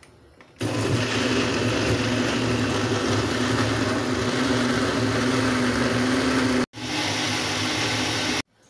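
Countertop electric blender starting up about half a second in and running steadily with a constant hum while grinding soaked beans, onion and red chili pepper with water into a smooth batter. The sound breaks off for an instant near the end, resumes, then stops abruptly.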